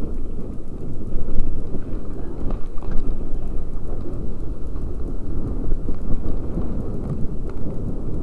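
Wind buffeting a helmet-mounted camera's microphone together with the rattle and tyre rumble of a mountain bike riding fast down a rough dirt trail: a loud, jittery low rumble with scattered small clicks.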